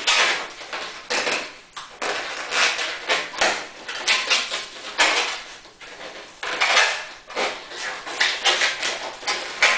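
A long latex modelling balloon squeaking and rubbing in the hands as it is bent and twisted. The squeaks come in quick, irregular bursts about every half second.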